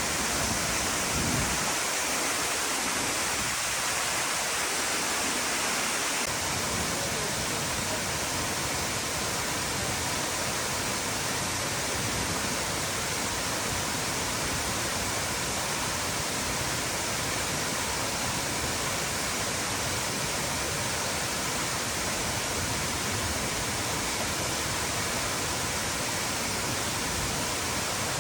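Steady rushing hiss of water, from rain or running water, with a deeper low rumble joining about six seconds in.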